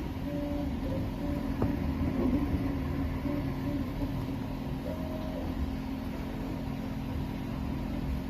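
CreatBot PEEK 300 3D printer running a print: its stepper motors whine in short tones that start, stop and change pitch with each move, over a steady hum. There is a single click about one and a half seconds in.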